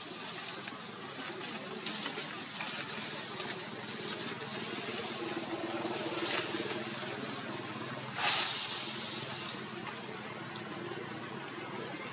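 Steady hissing outdoor background noise, with a brief louder rush of noise about eight seconds in.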